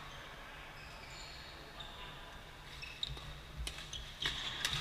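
Badminton rally in a large hall: several sharp racket hits on the shuttlecock in the last two seconds, with shoes squeaking on the court floor and footfalls.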